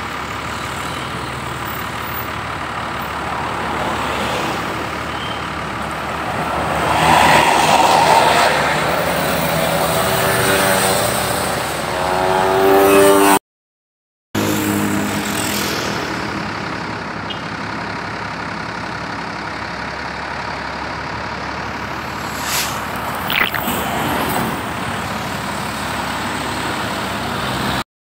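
Road traffic of buses and trucks passing close by with engines running. One vehicle passes loudly about seven seconds in, and an engine note rises in pitch a few seconds later, just before the sound cuts out for about a second. A few short hisses or knocks come near the end.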